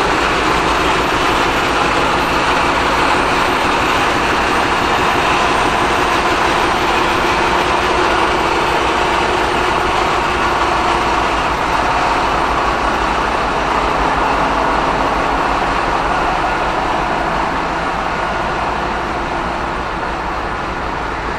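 Ship engine room machinery running: a loud, steady din that eases a little over the last few seconds.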